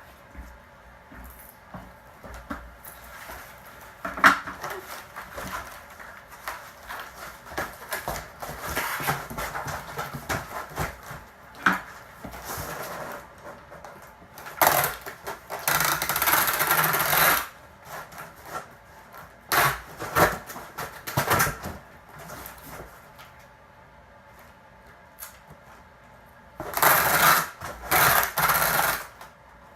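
Cardboard moving boxes being put together by hand: scattered knocks and scrapes of cardboard, with a longer rasping noise of a few seconds near the middle and another near the end.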